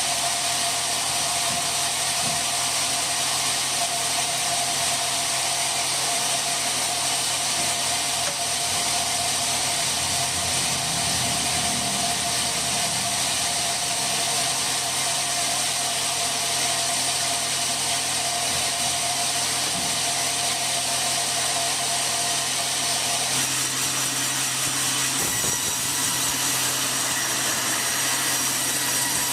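Sawmill saw cutting teak, running steadily with a loud high hiss and a steady tone; about 23 seconds in the tone drops out and the sound shifts.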